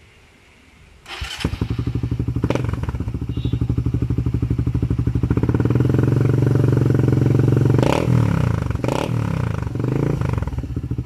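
Suzuki Raider 150 single-cylinder four-stroke engine with an Apido power pipe and no silencer. It starts about a second in and settles into a loud, fast-pulsing idle, then is given a few short throttle blips near the end.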